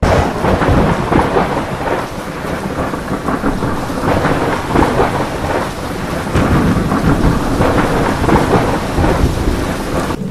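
Heavy rain pouring down, with thunder rumbling under it. The loudness surges unevenly. The downpour starts abruptly and cuts off suddenly near the end.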